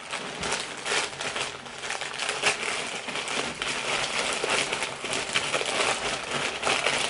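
Plastic mailing bag crinkling and rustling as a parcel is opened by hand, a dense run of irregular crackles.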